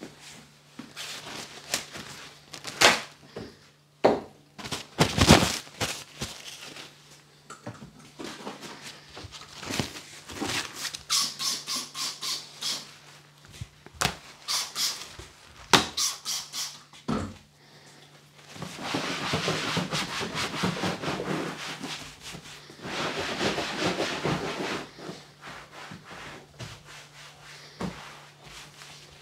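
A cloth wiping down a wet leather barber chair. First come scattered knocks and clicks of things being picked up and set down, with a brief squeak, then long stretches of rubbing about two-thirds of the way in, over a faint steady hum.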